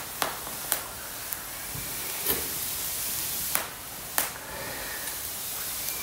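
Twig campfire in a steel fire pit crackling: a steady hiss of burning wood with about six sharp, irregular pops and snaps.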